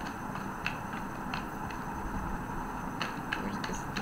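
Tarot cards being shuffled and handled: a scattering of light clicks and snaps over a steady hiss.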